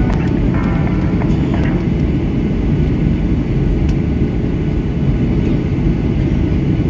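Steady low roar inside a jet airliner's cabin, from the engines and the airflow past the fuselage, heard from a window seat over the wing as the aircraft descends through cloud.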